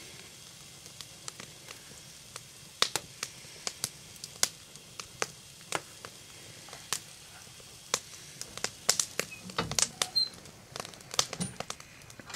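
Wood fire crackling in a wood stove firebox: irregular sharp pops and snaps over a faint hiss, coming thicker near the end.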